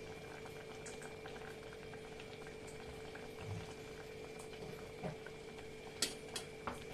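Sugar syrup bubbling at a steady boil in a steel pot with chhena balls cooking in it. Near the end come a few sharp clinks of a steel spoon against the pot as the balls are lifted out.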